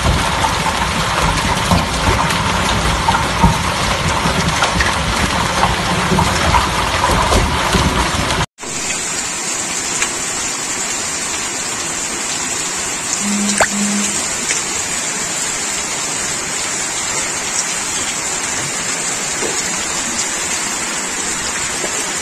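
Hail and rain coming down hard: a dense clatter of countless hailstones striking ground and water. About eight and a half seconds in it cuts suddenly to a steadier, thinner hiss of falling rain and hail.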